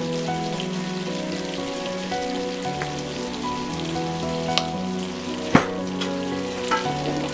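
Chicken breasts and garlic sizzling in a butter, lemon and soy sauce pan sauce in a stainless frying pan, a steady crackle like rain, with a sharp click a little past halfway through. Soft background music with held notes plays under it.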